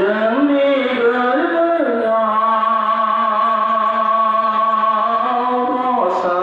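Slow, chant-like singing with long held notes over a steady low drone.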